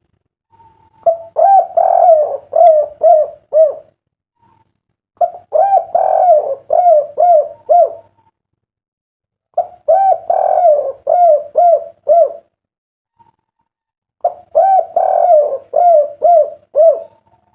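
Derkuku dove cooing: four phrases, each a quick run of six or seven coos, coming every four to five seconds. The call is of the 'kuk 3' style that derkuku keepers prize.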